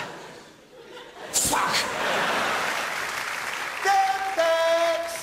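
Live theatre audience applauding and laughing, picking up again after a sharp click about a second and a half in. Near the end a long held vocal note with a slight step down in pitch rises over it.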